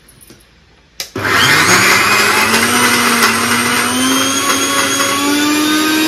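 Electric mixer grinder with a stainless steel jar switched on with a click about a second in, then running loudly and steadily as it grinds red chutney with a little water for the final grind into a paste. Its motor hum climbs slowly in pitch as it runs.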